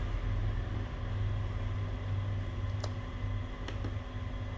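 A steady low hum, with two short clicks about three seconds and three and a half seconds in.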